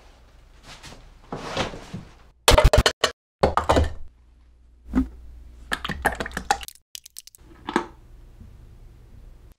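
Handling noises from paint cans and tools being moved about: a run of knocks and thunks, the loudest a cluster of sharp strikes a few seconds in, broken by abrupt cuts to silence.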